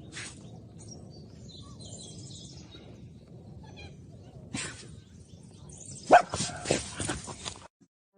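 A dog giving a quick run of short, loud barks about six seconds in, over a low steady background noise.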